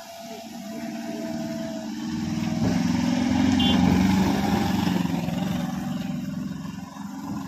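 A small van's engine grows louder as it drives past close by on a rough dirt road, peaks about halfway and then eases off. There is a brief high chirp about three and a half seconds in.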